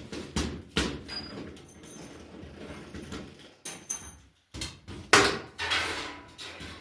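Series of sharp knocks and clatter from small metal parts and tools being handled during gas appliance work. The loudest knock comes about five seconds in.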